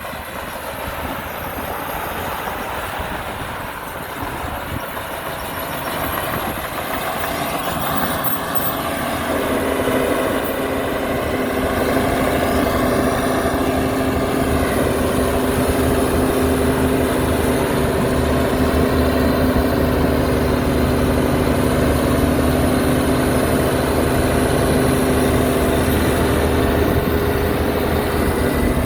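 Heavy diesel engine of an earthmoving machine running. It grows louder over the first ten seconds, then holds a steady, heavier drone as it works under load.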